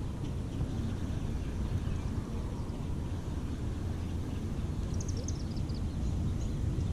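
Steady low rumble of wind buffeting the microphone, with a brief quick run of high bird chirps about five seconds in.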